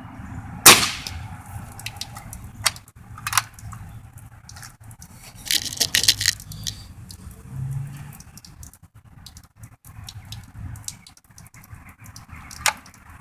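A pellet rifle fires with a single sharp crack about a second in, followed by scattered lighter clicks and knocks, with a quick cluster of them a little past the middle.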